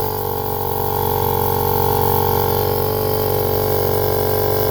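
Harbor Freight air compressor's electric motor running with a steady, loud multi-tone hum, its armature windings burning out and glowing red hot. The level builds slightly over the first second, then holds steady.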